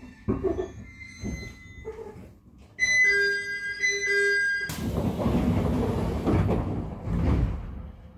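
Running noise heard inside a JR 701 series electric train car on the move. There is rail clatter and knocking, then a two-part pitched tone about three seconds in. After that a sudden loud rushing roar lasts about three seconds before fading back to the quieter running sound.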